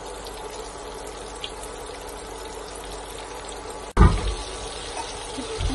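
Coated chicken pieces deep-frying in a pan of hot oil: a steady sizzle and bubbling. A sudden loud thump about four seconds in, and a softer one near the end.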